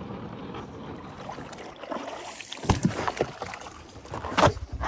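Knocks and clunks of gear being handled in a fishing boat as the bow-mounted electric trolling motor is moved by hand, over a steady hiss. The loudest clunk comes near the end.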